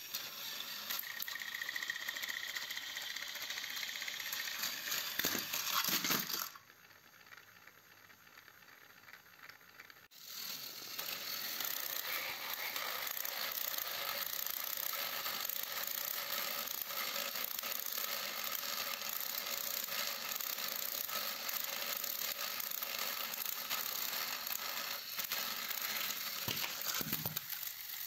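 Battery-powered Plarail toy trains running on plastic track, their small electric motors and gearboxes whirring with a steady rattling buzz. The sound drops away for a few seconds about six seconds in, then picks up again.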